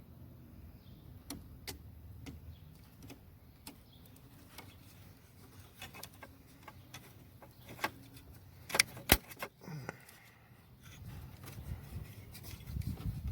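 Small plastic parts being handled and fitted: scattered light clicks and rattles from a headlight switch and its wiring plug, with a cluster of sharper clicks about nine seconds in.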